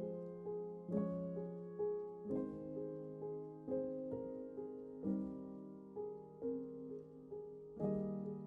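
Soft background piano music: slow, single notes and chords struck about once a second, each left to fade.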